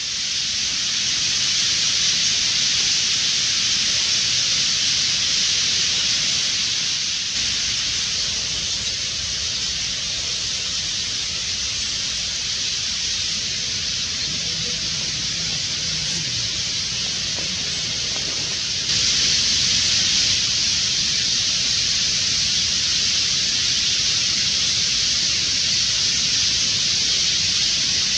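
A vast flock of bramblings calling all at once, thousands of calls merging into a steady hiss. The sound steps up suddenly about two-thirds of the way through.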